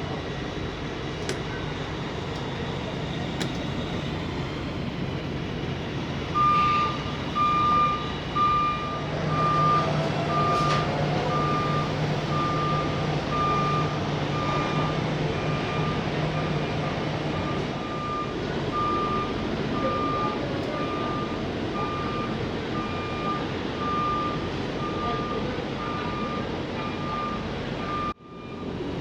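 A vehicle's reversing alarm beeping at one steady pitch, about three beeps every two seconds, starting about six seconds in, over the steady noise of idling trucks. A low hum joins for several seconds in the middle, and the sound cuts out briefly near the end.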